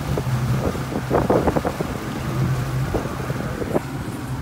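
Speedboat engine running at a low idle, a steady low hum, with wind buffeting the microphone and a cluster of brief louder noises about a second in.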